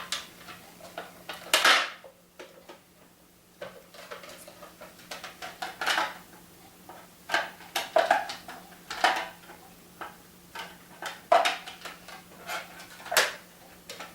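Hard plastic paintball hopper shell halves being handled and pressed together: irregular sharp clicks and knocks of plastic on plastic.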